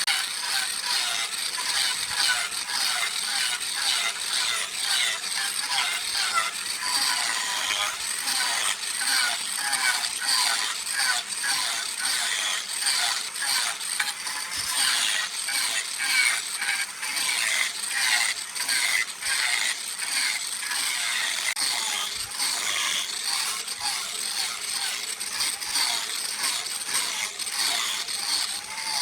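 A tool working wood with a dense, rapid rattling scrape that runs on without pause, made of fast clicks with little bass.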